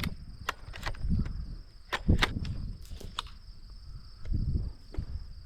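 Steady high-pitched insect chirring, likely crickets, with several sharp clicks and knocks scattered through it and low rumbling that comes and goes.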